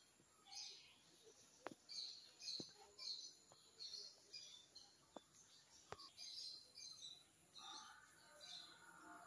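Faint bird chirps: short, high calls repeated about twice a second, with a few sharp clicks between them. A steadier, lower-pitched sound joins near the end.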